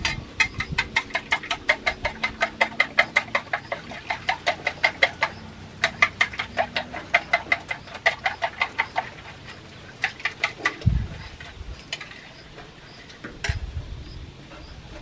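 A fork beating egg in a ceramic plate: fast, even clinks of metal on the plate, about seven a second, stopping about nine seconds in, followed by a short second run. A low thump comes about eleven seconds in.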